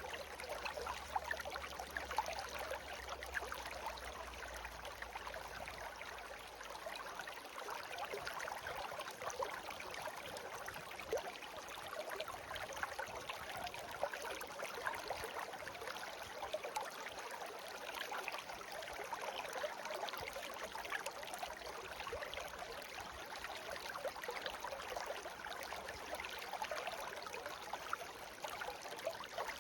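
Shallow brook babbling and trickling steadily over stones, with small splashes throughout. A faint low rumble underneath stops about seven seconds in.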